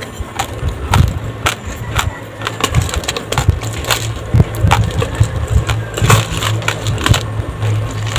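Raw glutinous rice grains being chewed close to the microphone: dense, irregular crunching with many sharp cracks, over a steady low hum.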